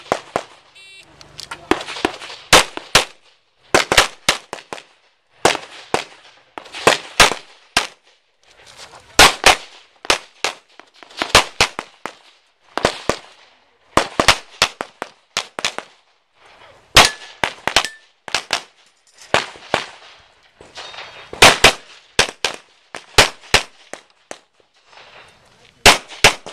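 Handgun fire from a practical pistol shooting stage: rapid pairs and short strings of shots with brief pauses between the strings.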